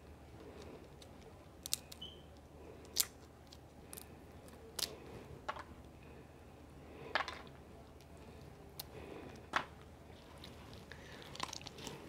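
A person chewing and biting shrimp close to the microphone: wet mouth clicks and smacks at irregular intervals, about one a second.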